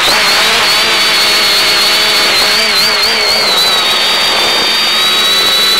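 X550AIOP quadcopter's electric motors and propellers running in a hover, heard over the downlink audio as a steady high whine whose tones waver slightly in pitch with the flight corrections, over a constant hiss.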